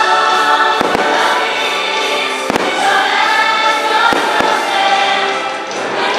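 Fireworks show music with choir voices, overlaid by sharp aerial firework shell bursts: two quick bangs about a second in, one at about two and a half seconds, and two more just after four seconds.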